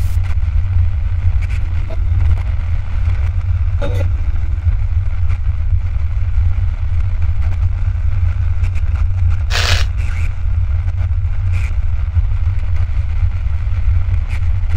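Deep, steady earthquake rumble with scattered small knocks and rattles; a brief clatter about ten seconds in stands out above it.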